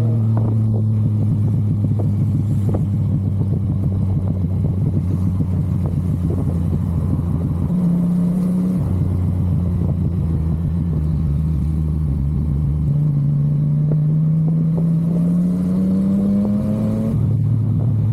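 Yamaha MT-09's three-cylinder engine running under way, its pitch easing down slowly and stepping up briefly about halfway through. Near the end the engine pitch rises steadily as the bike accelerates.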